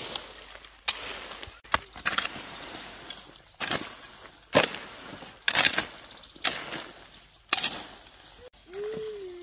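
A hoe chopping repeatedly into weedy, leaf-littered soil, about eight strokes roughly a second apart. Each stroke is a sharp hit followed by the rustle and scrape of dirt and torn plants.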